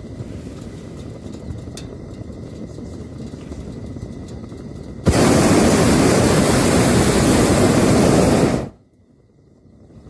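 Hot-air balloon's propane burner fires once, about five seconds in: a sudden loud roar lasting about three and a half seconds, then cut off. Before it there is only a low steady rumble.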